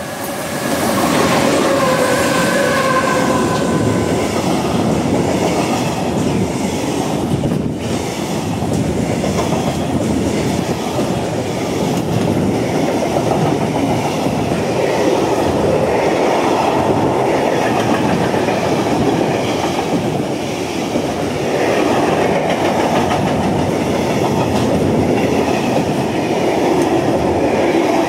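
Freight train hauled by an SNCB class 13 electric locomotive passing close by, its flat wagons loaded with steel beams rumbling and clattering steadily over the rails. As the locomotive goes past in the first few seconds, a faint tone dips slightly in pitch.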